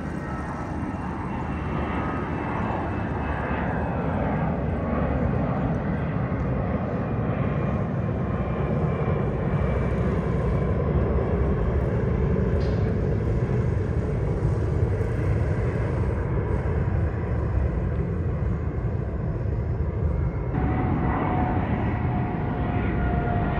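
Jet engines of a departing Airbus A320 climbing out overhead: a steady rumble that builds slowly. About 20 seconds in it cuts abruptly to a departing Boeing 777-300ER, with a steady high engine whine that slowly drops in pitch over the rumble.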